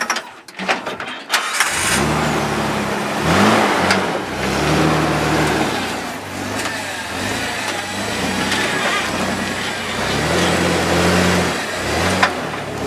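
A few sharp knocks, then a Jeep's engine revving up and down under load as it crawls up a rock ledge, its pitch rising and falling with the throttle.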